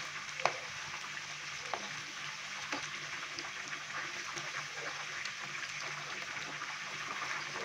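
Chicken pieces deep-frying in hot oil, a steady sizzle, while a slotted spatula stirs them in the pan, with a few knocks of the spatula against the pan in the first three seconds.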